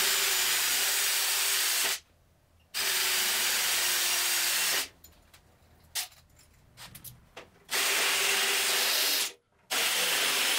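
Cordless drill with a 1/4-inch bit drilling holes through a sheet metal panel: four steady runs of about two seconds each, with a few light clicks of handling between the second and third.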